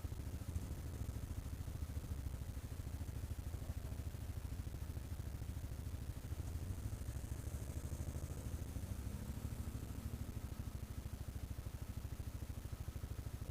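ATV engine running steadily at low revs, with an even, low pulsing beat and no sharp revving.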